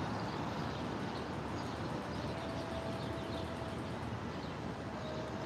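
Steady background noise of distant street traffic, with a faint thin tone held briefly about halfway through.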